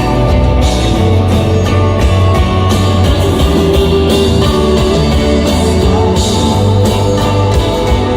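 Indie-rock band playing a song live, with guitar prominent over a full band.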